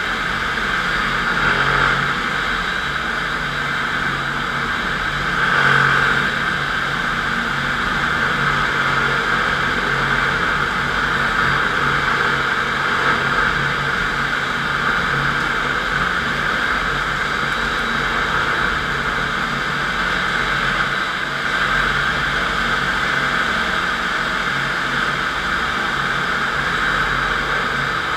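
FastPrep concrete floor grinder running steadily: electric motor hum under a constant grinding hiss of diamond grinding plates cutting into a concrete floor, swelling briefly about two and six seconds in.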